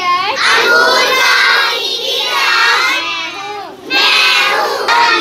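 A group of young children singing loudly in unison, breaking off for a moment about three and a half seconds in before going on.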